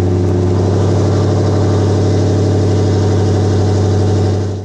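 Dodge Charger's engine idling loudly and steadily through Hellcat-style headers and downpipe with a gutted catalytic converter, a deep, even exhaust pulse.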